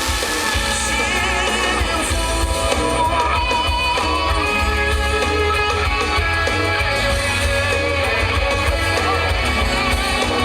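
Recorded song playing loudly: a singing voice over guitar and a steady bass line.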